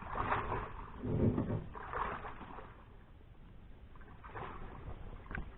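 Soft, irregular splashing and sloshing of shallow swamp water from wading, several separate splashes spread through.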